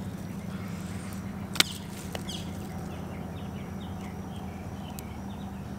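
Pliers and fish being handled: one sharp click about a second and a half in and a fainter one near the end, over a steady low hum, with faint bird chirps.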